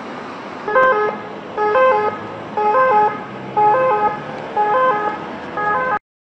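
Emergency vehicle siren sounding a repeating two-tone pattern about once a second over a steady traffic rumble, cutting off suddenly near the end.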